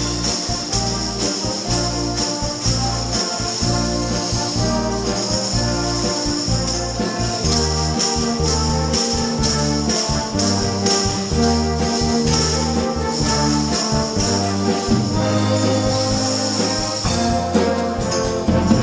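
Timbrels (ribboned tambourines) struck and shaken together in a steady rhythm, their jingles ringing on each beat over orchestral backing music with brass.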